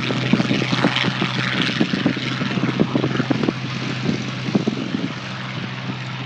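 Curtiss P-40 Warhawk's liquid-cooled inline V-12 engine at takeoff power: a dense propeller-engine rumble with crackling exhaust that eases a little near the end as the fighter climbs away.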